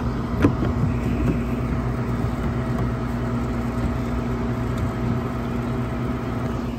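Window air conditioner running, a steady hum of compressor and fan, with one short click about half a second in.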